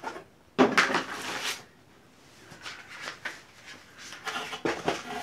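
Cardboard box and plastic packaging being handled and rummaged through as items are taken out of the box. The loudest part is a rustle of about a second, starting about half a second in, followed by scattered smaller rustles and taps.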